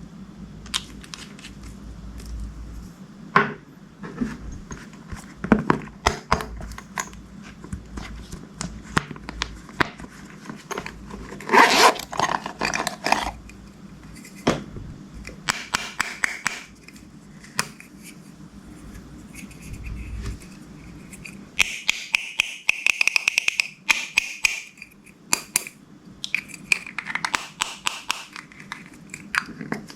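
Slime being pressed and mixed by hand, giving sticky clicks, pops and crackles with scraping. A dense crackling stretch comes about twelve seconds in, and a quick run of crackles comes about two-thirds through.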